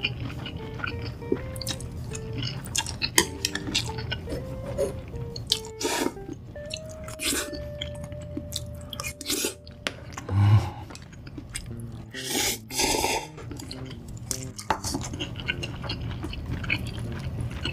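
Close-miked eating: spicy instant noodles slurped up and food chewed with wet mouth noises, with several longer slurps spread through. Background music plays underneath.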